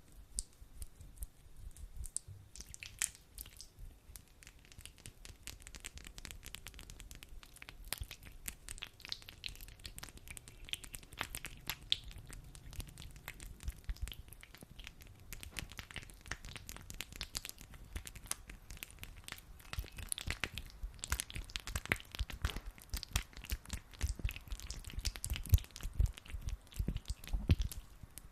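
Hands rubbing sticky aloe vera gel close to the microphone: a continuous run of wet, sticky crackling and squelching clicks, growing louder with heavier low thuds near the end.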